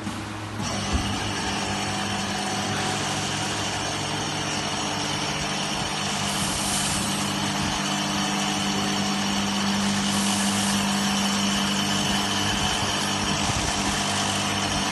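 Remax-1385 CNC router running, with a steady machine hum and whine over noise that steps up in level under a second in. Two brief hissier spells come about six and ten seconds in.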